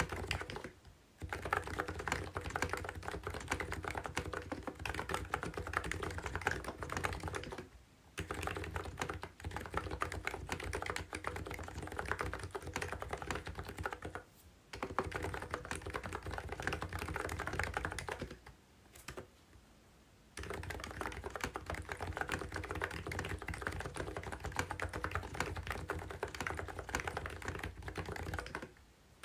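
Continuous fast typing on a COX CNK84W electro-capacitive (무접점) mini keyboard: dense runs of keystrokes broken by short pauses, with a longer pause of about two seconds past the middle.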